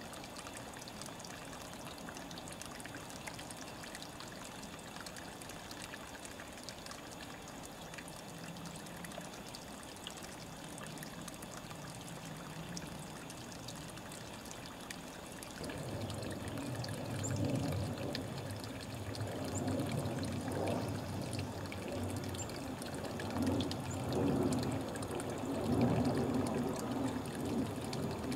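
Small forest stream trickling and pouring steadily. About halfway through, a louder, uneven low rushing sound comes in and rises and falls in waves.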